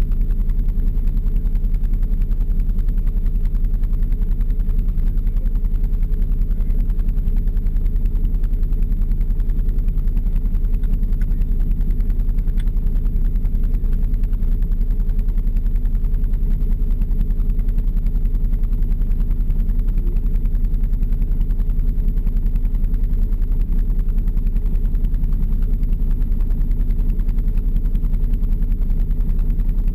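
Vehicle engine idling steadily with a low, even hum while the vehicle stands still.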